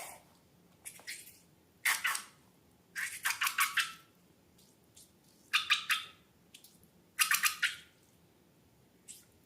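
Slime being squished: about five short bursts of wet crackling and popping clicks, separated by pauses.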